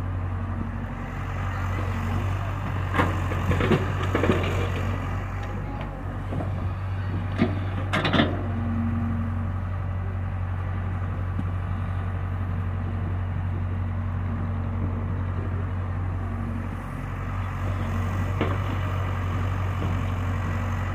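Excavator's diesel engine running steadily, with a few sharp clanks and thuds about three to four seconds in and again about eight seconds in.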